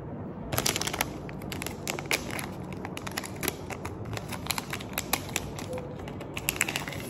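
Foil test-cassette pouch crinkling in the hands and being torn open, a quick run of sharp crackles.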